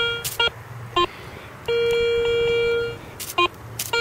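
Metal detector, likely a Garrett, sounding electronic target tones over a round iron object. A steady mid-pitched tone fades out just after the start, short blips follow, and another steady tone is held from about a second and a half to three seconds in.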